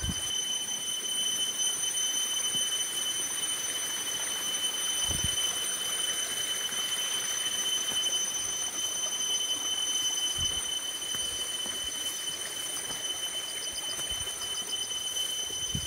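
Water poured from a metal bowl, splashing down, with a couple of dull thuds from handling, over a steady high-pitched whine.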